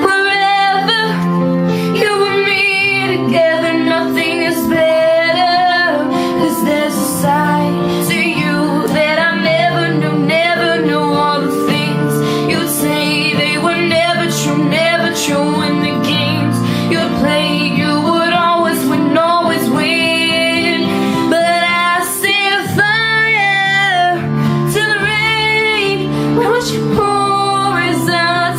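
A pop ballad with a woman singing over instrumental backing, the singing continuing with only brief breaths between phrases.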